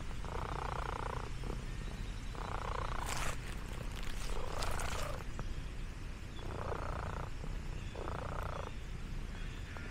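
Orange tabby cat purring close up, the purr swelling with each breath about every one and a half to two seconds. A few brief rustling clicks about three to five seconds in.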